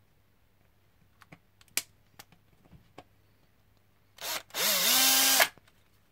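Power screwdriver backing the stock screw out of a plastic RC battery tray: a short whir at about four seconds, then a longer run that rises in pitch and holds steady. A few light plastic clicks of the tray being handled come before it.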